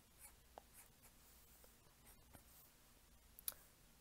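Faint, scratchy short strokes of a black fine point marker drawing on cardstock paper, with one sharp tap about three and a half seconds in.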